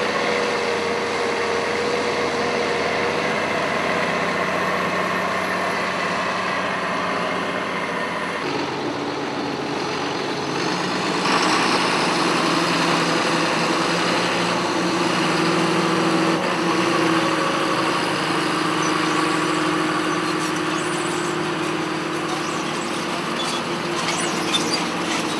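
Tractor engines running steadily under load, pulling soil tillage and drilling implements through a field. About eight seconds in the engine note changes as a second tractor, drawing a seed drill, takes over. A few light clicks come near the end.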